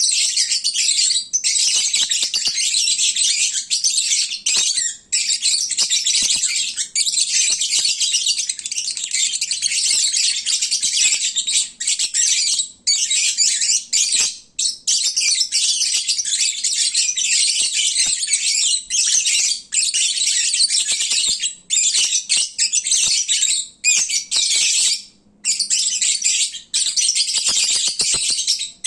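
Lovebirds chattering loudly, a dense, almost unbroken stream of high-pitched chirps and squawks with a few short pauses: the racket lovebirds make when fed and drowsy.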